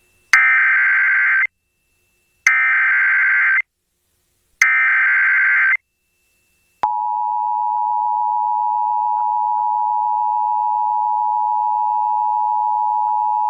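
Emergency Alert System activation tones announcing a tornado warning: three bursts of SAME digital header data, each about a second long and about a second apart, then, about seven seconds in, the steady two-tone EAS attention signal.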